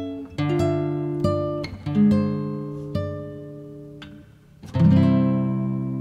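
Background music on acoustic guitar: plucked notes, each fading after it is struck, then a strummed chord about three-quarters of the way in that rings on and slowly dies away.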